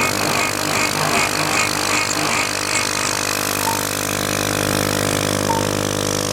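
CNC machine running with a steady motor hum. For the first three seconds a higher beeping tone pulses about two and a half times a second, then stops.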